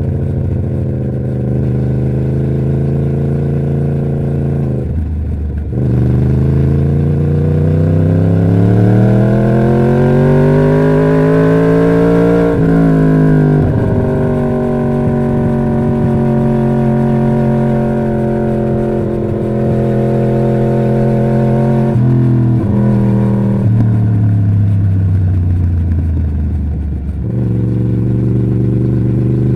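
2011 Yamaha YZF-R1's crossplane inline-four running through its stock exhaust. It idles, then is slowly revved up for several seconds and dropped back. It is held steady at raised revs for several seconds, then falls back to idle near the end.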